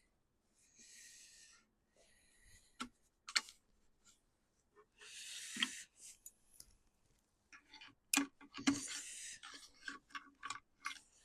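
Scattered light clicks, taps and short rustling scrapes of hands handling a chainsaw's fuel line and small plastic parts, each sound brief with gaps between.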